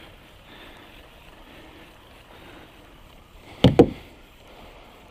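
Low steady hiss of open air and calm water around a fishing kayak, broken about three and a half seconds in by a loud, sharp double knock.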